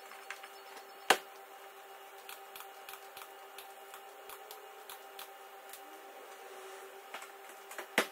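Steady workshop hum with scattered small clicks, and two sharp knocks, one about a second in and one near the end.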